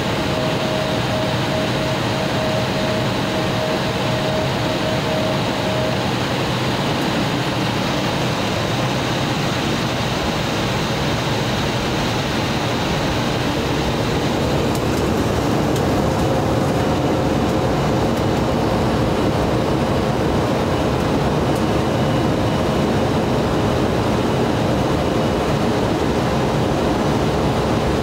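Cabin noise of an Embraer E175 on the runway: its GE CF34 turbofan engines run with a steady roar and faint whine, growing louder about halfway through as they spool up for the takeoff roll.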